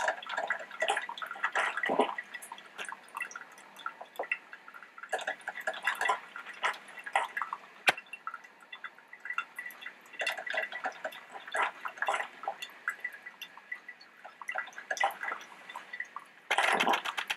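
Melitta Gevalia BCM-4C four-cup drip coffee maker brewing: hot water sputtering and dripping through the filter basket in irregular small pops and drips.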